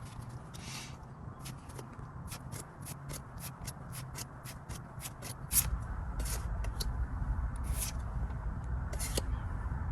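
Pokémon trading cards being handled: a run of short crinkles and flicks as a booster pack is opened and the cards are flipped through. Beneath them is a low steady rumble that grows louder about five and a half seconds in.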